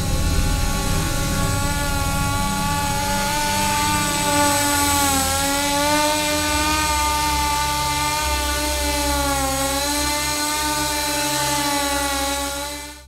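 Electric motors and propellers of a Scarab Avatar tricopter in low flight: a steady whine whose pitch dips and recovers twice as the throttle changes. It cuts off suddenly near the end.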